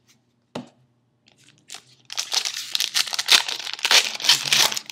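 Plastic wrapper of a 2011 Upper Deck football card pack being torn open and crinkled, a sharp click early, then about three seconds of dense crackling.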